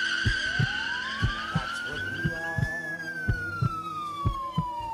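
An emergency-vehicle siren in one long wail, rising for about three seconds and then slowly falling, over a slow heartbeat of paired low thuds about once a second. A high squeal fades out over the first couple of seconds.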